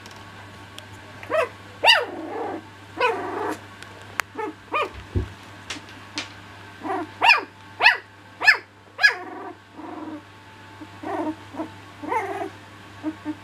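Cocker spaniel puppies play-fighting, giving a string of short, high-pitched yappy barks in clusters, with growls in between.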